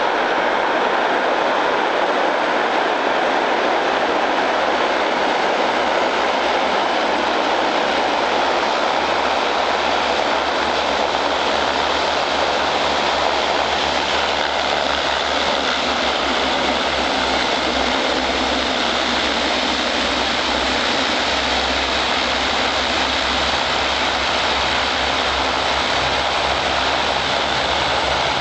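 De Havilland Canada DHC-7 Dash 7's four Pratt & Whitney Canada PT6A-50 turboprops running as the aircraft rolls along the runway after landing: a loud, steady propeller and engine drone.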